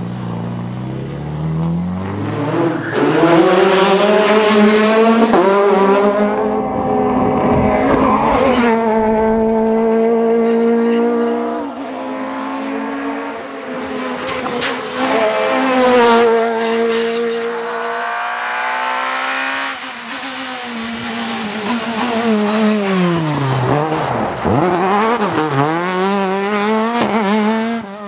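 Rally cars at full throttle, engines revving high and climbing through the gears, their pitch rising and falling in repeated sweeps. Several cars run flat out past the microphone one after another.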